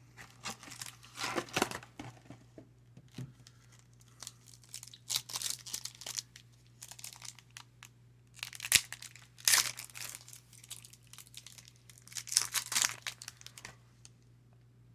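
Trading card pack wrapper crinkling and tearing, in four bursts of a second or two each, with one sharp click about nine seconds in.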